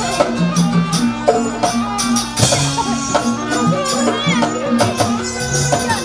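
Live jaranan music: a Javanese gamelan-style ensemble playing a steady, repeated low chime note over drum strokes and a jingling rattle.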